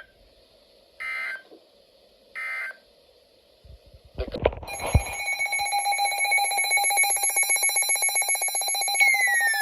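Three short buzzy bursts of NOAA Weather Radio SAME digital data, then a few thumps, and about halfway in a weather alert radio's alarm starts: a loud electronic tone pulsing rapidly, with a second tone gliding downward near the end.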